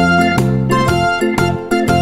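Instrumental background music: a melody of separate notes over held bass notes.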